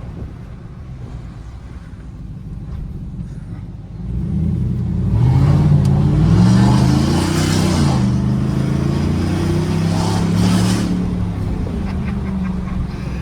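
Chevrolet Silverado gasoline V8 running through a wide-open 3-inch stainless exhaust cutout. It is low and steady for the first few seconds, then accelerates hard about four seconds in, its pitch climbing and falling, with a second surge near the end before easing off.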